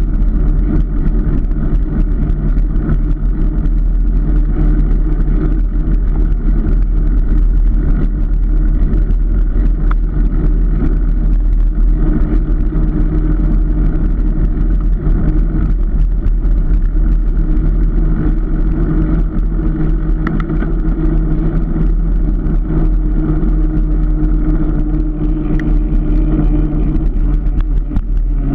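Car driving at a steady speed: a constant engine hum over low road rumble.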